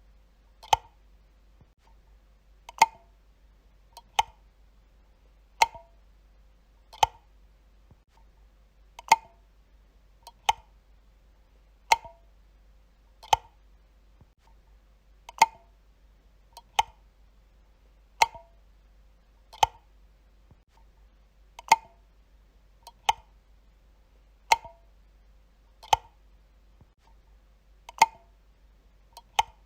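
Wall light switch being flipped over and over: sharp single clicks about every second and a half, each followed by a faint tick.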